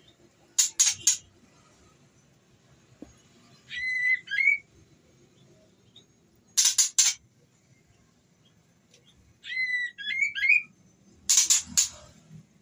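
Female white-rumped shama (murai batu) calling, a female in breeding condition calling to a male. Three short bursts of harsh, rapid chattering notes alternate with two brief whistled phrases, each a flat whistle breaking into quick upward twists.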